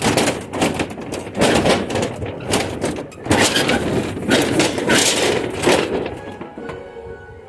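Accordion storm shutter sliding along its track, its slats clattering in a series of loud, rough surges that die away near the end.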